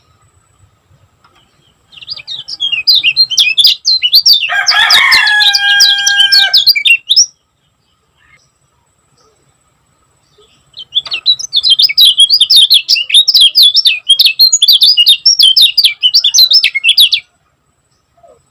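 Kecial kuning singing its fast, tightly packed chattering song of high notes in two long bursts with a pause between. During the first burst a lower, drawn-out call of steady pitch sounds for about two seconds.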